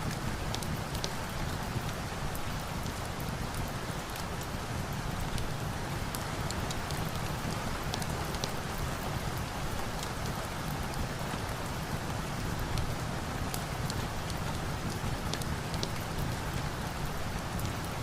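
Steady rain, with many short, sharp clicks scattered throughout.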